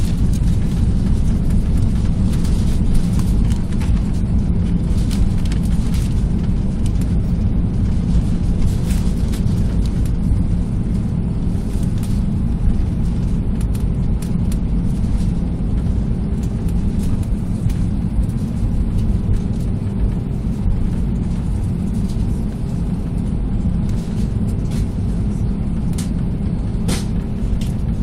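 Cabin noise of an Airbus A320 during its landing roll-out: a steady, loud low rumble of engines, airflow and wheels on the runway, easing gradually as the aircraft slows, with occasional sharp clicks.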